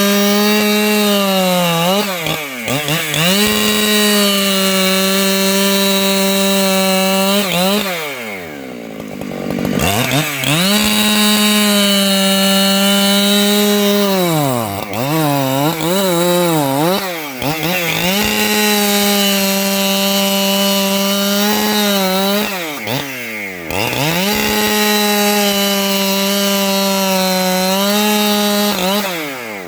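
Two-stroke 585XP chainsaw held at a high, steady pitch while cutting lengthwise through a log. The engine drops back and picks up again several times between long stretches under full throttle, and dies down at the end.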